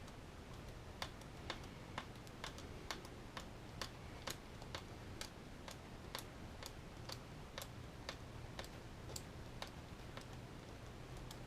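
Sharp, evenly spaced ticking clicks, about two a second, over a faint low hum.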